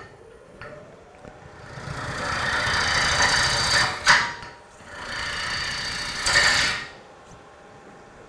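Gouge cutting across the bottom of a spinning Bradford pear bowl blank on a wood lathe, facing off the bottom to remove a small check. The cutting hiss comes in two passes, with a sharp click between them about four seconds in.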